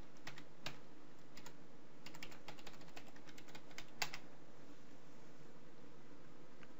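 Typing on a computer keyboard: quick runs of keystrokes for about four seconds, ending with one louder click. After that, only a steady faint hiss.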